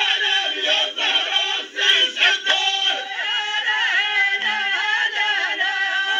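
Group of voices singing together in a Moroccan Rokba folk song from Zagora, with a few sharp beats about two seconds in.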